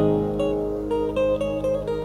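Instrumental backing music of an Arabic song: a plucked string instrument picks a quick melody over held low notes.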